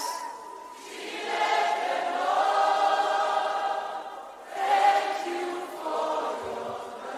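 A group of voices singing wordless held notes together, swelling about a second in and again a little past the middle.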